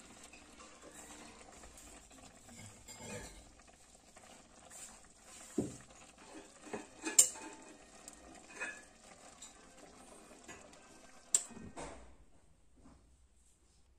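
Steel ladle scraping and clinking against a metal frying pan while stirring a thick curry, with scattered sharp knocks, the loudest about halfway through and again near the end. It stops about two seconds before the end.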